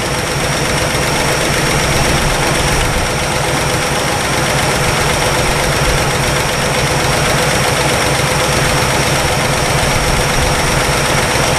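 1962 Chevrolet engine, long stored and recently revived, idling steadily as it warms up, with an even pulsing rumble and a steady tone held above it.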